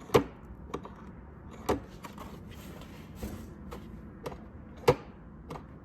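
Cessna 182 baggage door latch worked by hand to test its newly replaced spring: a series of sharp clicks, a few louder snaps among lighter ticks, as the latch moves and springs back.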